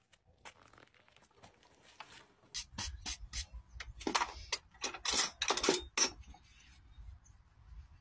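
Farrier's tool working a horse's hoof: a quick run of about a dozen short scraping strokes, starting about two and a half seconds in and stopping about six seconds in.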